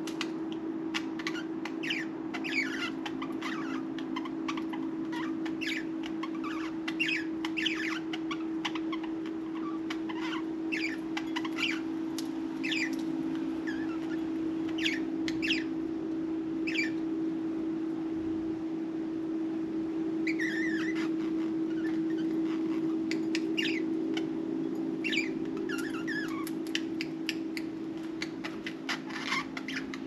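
Budgerigars chirruping and chattering in a loose run of short, quick chirps and twitters, the contented chatter of settled budgies, over a steady low hum.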